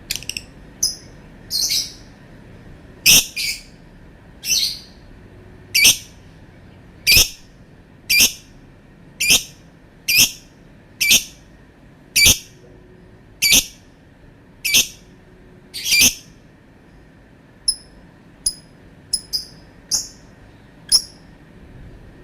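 Lovebird giving a run of short, loud, high-pitched calls about once a second, then a few shorter, softer chirps near the end.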